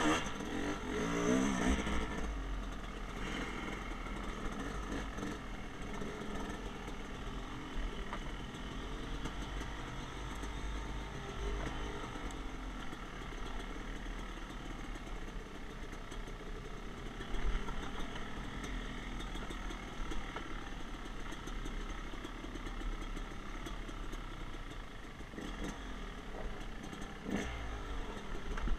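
Yamaha YZ250X two-stroke single-cylinder dirt bike engine running under changing throttle, its pitch rising and falling as it pulls. It is loudest in the first two seconds, with a brief surge about seventeen seconds in and another near the end.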